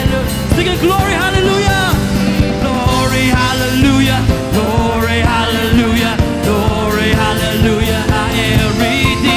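Live church worship band playing a full, steady rock-style song, with a singing voice over the band.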